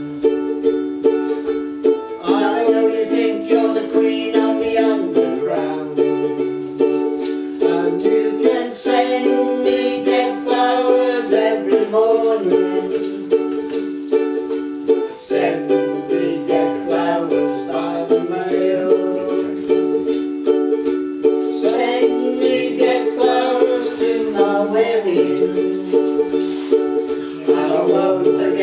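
Ukulele strumming a steady chord rhythm through an instrumental break between the sung verses, with a higher melody line over the chords.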